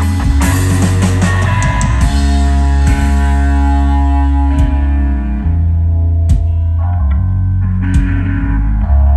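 Live rock band playing an instrumental passage with no singing: electric guitars over bass and drums. About three seconds in the playing thins out to long, ringing chords broken by a few single hits.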